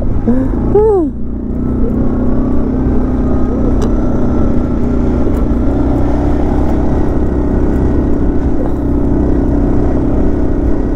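ATV (quad bike) engine running under steady throttle as it rides across loose sand, its pitch creeping a little higher around the middle as speed builds. Two short rising-and-falling sounds come in the first second.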